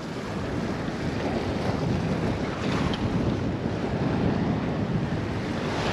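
Wind buffeting the microphone over the steady wash of waves breaking against jetty rocks.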